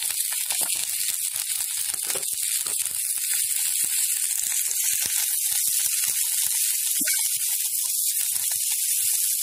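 Shredded cabbage sizzling with a steady hiss in hot oil in a kadhai, with a wooden spatula scraping and knocking against the pan in irregular clicks as it is stirred.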